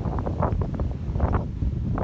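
Wind buffeting the phone's microphone in uneven gusts, a steady low rumble with repeated sharper surges.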